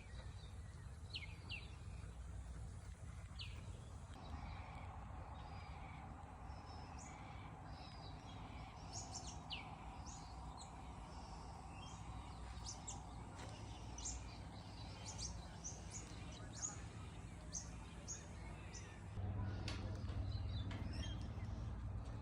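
Small birds chirping: many short, high calls scattered throughout, over a steady low rumble. A steady hum joins a few seconds in and stops near the end, when the low rumble gets louder.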